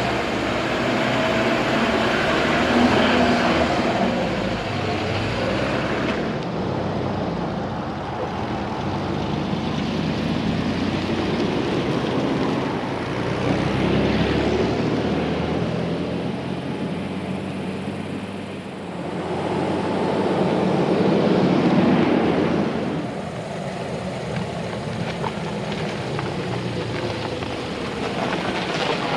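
A car driving on the road while towing another car on a rigid tow bar: steady engine and road noise, growing louder about halfway through and again about two-thirds through as the engine is pulled harder.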